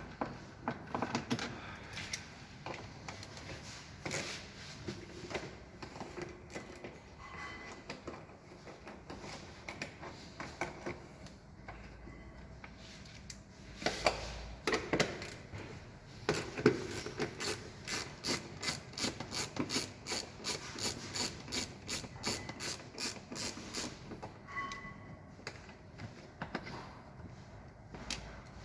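Hand tools and trim panels being worked during car disassembly: scattered knocks and scraping, then a steady run of ratchet-wrench clicks, about three a second, for several seconds after the middle as a bolt is turned out.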